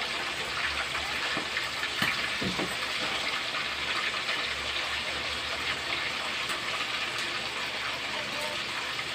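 Whole fish deep-frying in hot oil in a pan, the oil sizzling steadily with a few faint crackles.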